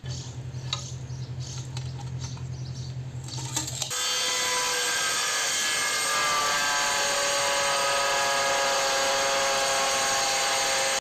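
Angle grinder cutting a ceramic tile: about four seconds in the disc bites in with a loud, steady grinding whine that dips slightly in pitch as it takes the load, then cuts off suddenly at the end. Before it, a low steady hum with light taps and scrapes.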